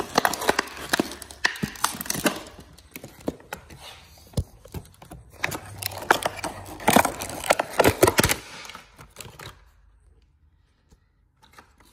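Clear plastic clamshell packaging crinkling and clicking as it is handled to take the switch out. The sound comes in two bunches of sharp crackles, one at the start and one around seven to eight seconds in, and fades almost to nothing near the end.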